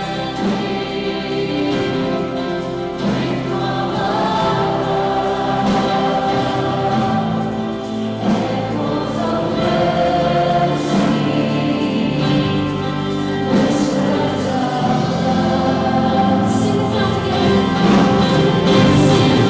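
A choir singing a hymn with instrumental accompaniment, voices holding long notes.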